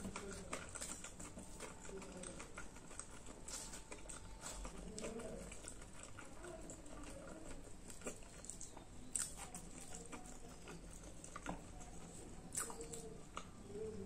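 Close-miked eating sounds: wet chewing and lip smacks, with the soft crackle of fried puri being torn by hand and scattered sharp clicks, a few louder smacks in the second half.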